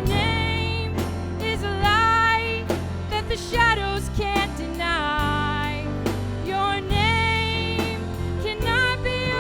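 Live worship band playing an instrumental passage between choruses: a sliding, bending lead melody over bass and a steady drum kit beat.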